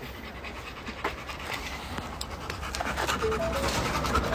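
Labrador retriever panting quickly with its mouth open, the panting growing louder over the few seconds.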